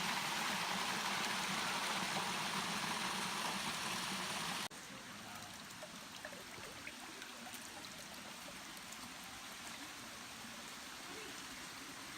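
Running water, a loud steady rush that cuts off abruptly about five seconds in, followed by a quieter hiss of water with faint scattered drips.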